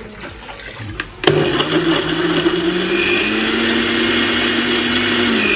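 Countertop blender switched on about a second in, its motor running steadily as it purées fruit and juice into a thick açai smoothie. Its low hum steps up slightly in pitch about two and a half seconds in.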